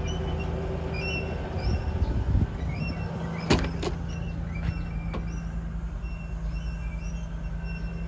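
Steady low hum of an idling engine, with a few knocks and bumps about two seconds in and a single sharp metallic click of the Kubota combine's cab door about three and a half seconds in.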